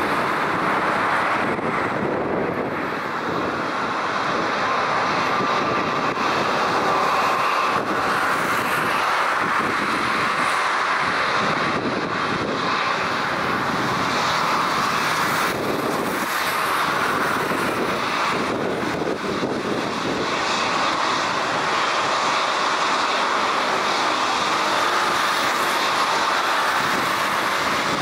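Boeing 777-300ER's twin GE90 turbofan engines running at low taxi power as the airliner taxis, a steady jet rush with a faint high whine.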